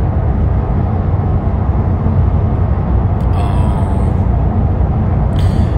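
Steady low rumble of road and engine noise inside a car cabin travelling at highway speed.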